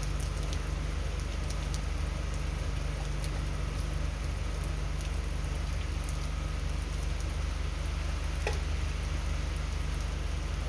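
Heavy hurricane rain falling steadily, with scattered drops ticking sharply over a constant low rumble.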